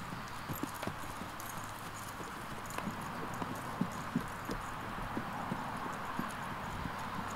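Hoofbeats of a horse trotting and cantering on grass: a run of soft, irregular thuds over a steady background hiss.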